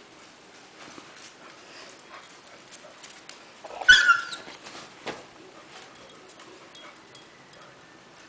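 Beagle puppy giving one short, high yip that falls slightly in pitch about four seconds in, an angry protest at being handled, amid faint rustling and scuffling as it squirms and snaps.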